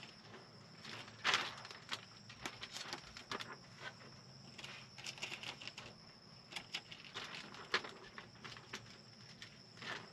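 Hands pressing and sliding wet window-tint film against a truck's side-window glass, heard from inside the cab: irregular rubbing and tapping, with a louder burst about a second in and another near eight seconds.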